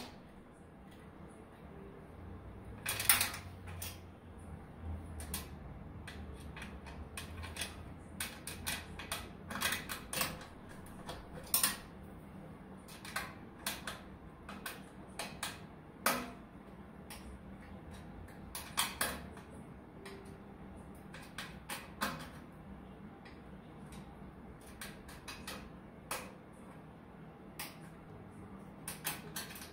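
Irregular metallic clicks and knocks of a hand tool and fasteners as a pellet stove's convection blower motor is snugged down in its steel housing.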